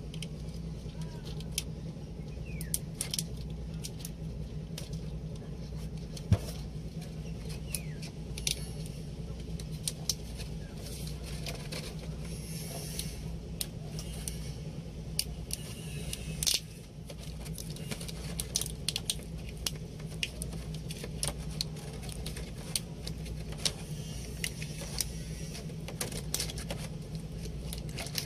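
Steady low hum, with scattered sharp clicks and light metallic rattles throughout.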